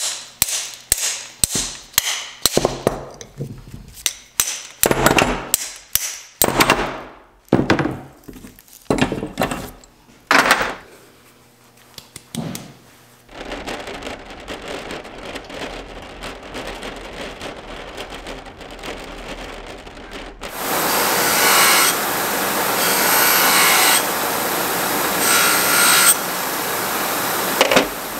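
Workshop tool sounds: a quick run of sharp knocks, about two a second, thinning to scattered knocks. Then a power tool starts running steadily about halfway in and gets much louder about two-thirds of the way in.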